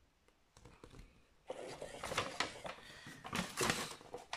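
Large paper instruction sheet rustling and crackling as it is handled, faint at first and turning into a busy run of crackles about a second and a half in.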